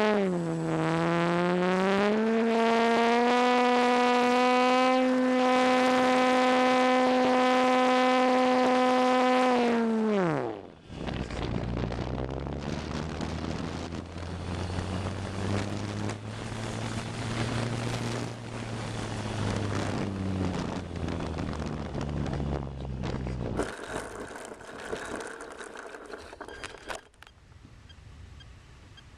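Electric motor and propeller of a ParkZone T-28 RC plane, heard from on board, whining steadily at high throttle, then dropping sharply in pitch and level about a third of the way through as the throttle is cut. A lower, quieter motor hum with wind rush follows during the descent. Near the end comes a rough scraping rush as the plane touches down and slides on the grass.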